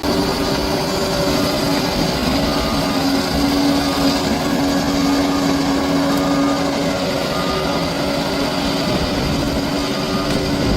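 Bulldozer's diesel engine running steadily under load, with a constant engine note over a dense mechanical din. It cuts in suddenly at the start.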